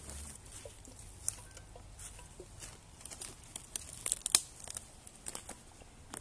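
Footsteps in shoes crunching through dry leaf litter and twigs on a forest floor, with irregular crackles and snaps; the loudest snap comes about four seconds in.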